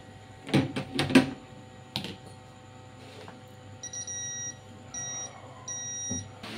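A few sharp handling clicks and taps, then a digital multimeter's continuity beeper sounding three times, each beep about half a second long and roughly a second apart, as the test probes touch points on the TV panel board in a check for short circuits.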